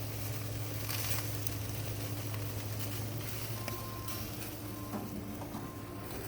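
Chicken thighs sizzling on a wood-fired grill, an even hiss with scattered small crackles and pops, over a steady low hum.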